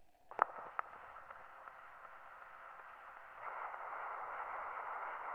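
Cylinder phonograph starting to play a black cylinder record: a sharp click about half a second in and a smaller one just after as the reproducer goes down onto the cylinder, then the steady hiss of the stylus running in the lead-in groove, louder from a little after three seconds.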